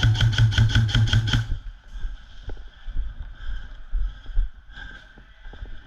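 Airsoft electric gun firing a rapid full-auto string over its gearbox hum, stopping about one and a half seconds in; faint scattered clicks of distant shots follow.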